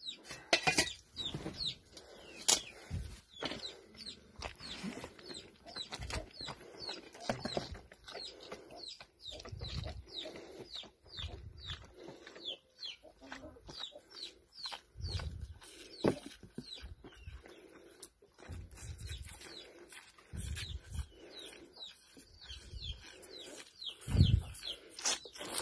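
A calf sucking milk from a nipple on a plastic bottle, with low muffled gulps every second or two, while birds chirp over and over. A few sharp clicks come in the first few seconds.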